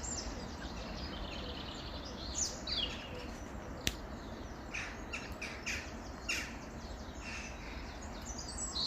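Mixed garden birdsong from blackbirds, a wren and thrushes: a run of short chirps and whistled phrases over a steady low background hum, with one sharp click about four seconds in.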